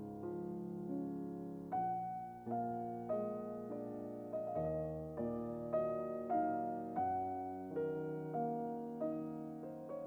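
Background music: slow solo piano, notes struck about twice a second and left to fade.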